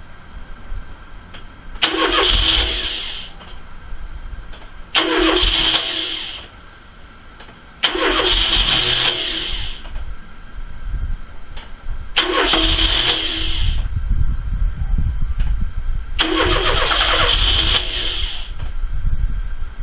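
A 1981 Ford Cortina MK5 being cranked over and over on its starter, in bursts of about a second and a half each, five times with a sixth just beginning at the end. From about eight seconds in, a low engine rumble carries on between the attempts. It is a slow, reluctant start after the car has stood unused for seven months.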